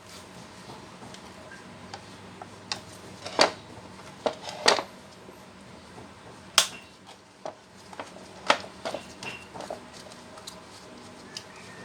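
Metal parts clinking and knocking as they are handled: scattered sharp clicks, the loudest about three and a half, four and three-quarters, six and a half, and eight and a half seconds in.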